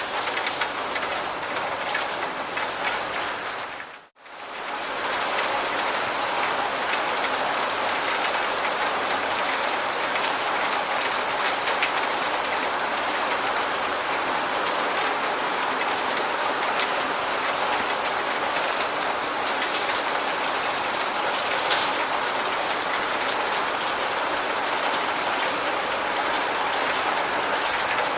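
Steady rain falling, with individual drops ticking through the hiss. About four seconds in, the sound fades briefly almost to silence, then returns at the same steady level.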